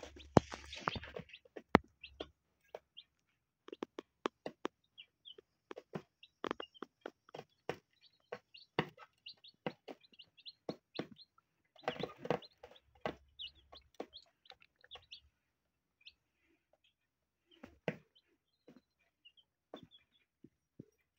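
Mother hen pecking feed off a hard plastic lid: an irregular run of sharp taps, with a dense flurry of pecks about midway. Newly hatched chicks peep softly in short high chirps throughout.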